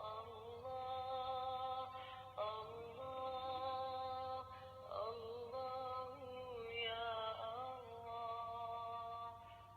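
Quran recitation chanted by a single voice, played from a plug-in 24-hour automatic ruqyah player: long held melodic lines broken by short pauses every few seconds, over a steady low hum.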